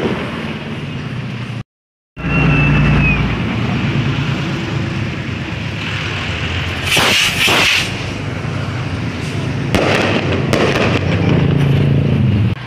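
Fireworks going off over a steady low rumble. The sound cuts out briefly about two seconds in. Two loud crackling bursts come about seven seconds in, and more follow around ten to eleven seconds.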